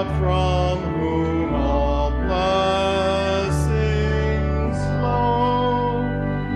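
Slow church music during the offertory: long held chords, the bass note changing every second or so, with a voice singing over them.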